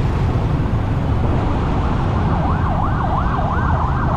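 Motorcycle riding in city traffic heard from a helmet-mounted camera: steady engine, wind and traffic rumble. A little past halfway a siren starts up, wailing quickly up and down about three times a second.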